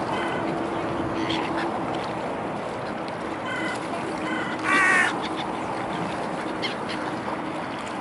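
Gulls calling: a few short, harsh calls, the loudest about five seconds in. Under them is a steady background noise with a faint low hum.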